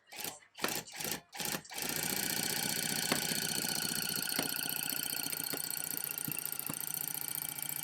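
Electric rug-tufting gun punching yarn into backing cloth. It gives a few short bursts, then runs steadily from about two seconds in with a fast, even buzz.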